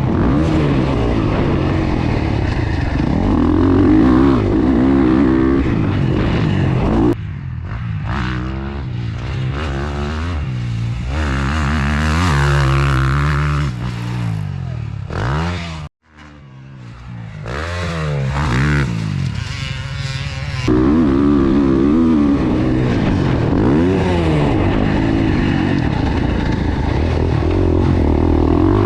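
Gas Gas 450F four-stroke single-cylinder dirt bike engine revving up and down as it is ridden, pitch climbing and falling through the throttle. The sound drops out abruptly for a moment about halfway through, then the engine comes back in.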